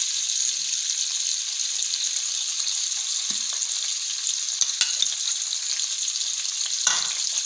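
Freshly added sliced onions sizzling in hot ghee in a stainless steel kadhai, a steady frying hiss. A few brief sharp clicks come through about two-thirds of the way in.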